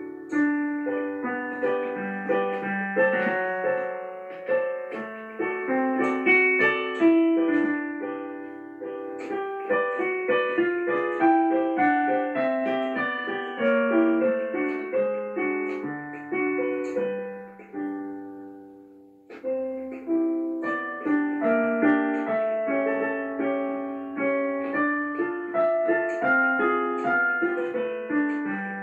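Background piano music, a continuous run of notes; it dies away about eighteen seconds in and starts again a second later.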